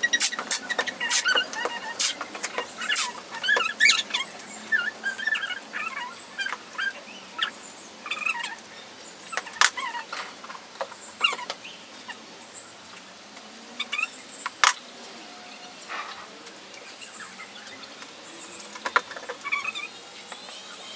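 Masking tape being pulled off the roll and pressed onto a plexiglass-covered cube, with short squeaks from the unrolling tape and many sharp taps and clicks from hands and tape on the panels.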